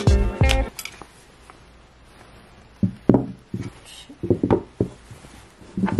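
Background music cuts off under a second in. Then come an irregular series of light knocks and clacks as a laptop is handled and set down on an aluminium laptop stand.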